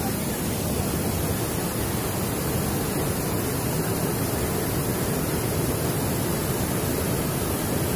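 Mountain river water rushing steadily over a low cascade of rock ledges.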